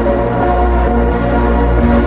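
Background music: held notes over a deep bass, the bass starting to pulse quickly near the end.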